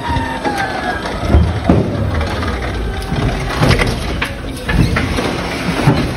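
Forklift carrying a pallet into a truck trailer: a steady low rumble with a whine that falls away about a second in, and a string of clanks and knocks along the way.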